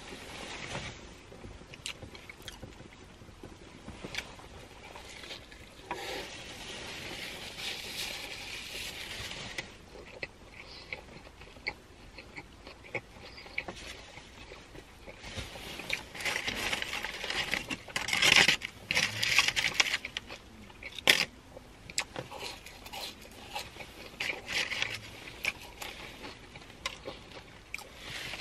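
Close-up eating sounds of a burger being bitten and chewed, with sharp clicks throughout and two longer stretches of rustling, one a few seconds in and one past the middle.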